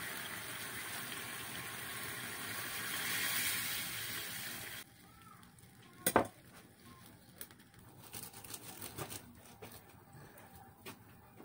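Adobo sauce with garlic sizzling and bubbling in a frying pan over a gas flame, steady and swelling slightly before cutting off suddenly about five seconds in. Then it is much quieter, with one sharp knock about a second later and a few faint clicks.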